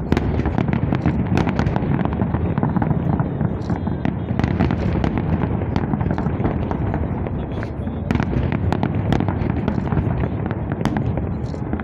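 Fireworks salute going off: a dense, continuous run of cracks and bangs over a steady low rumble.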